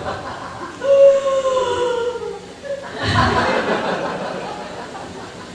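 A single voice holds a long, slightly falling note for about two seconds. Then, about three seconds in, the audience bursts out laughing and the laughter fades.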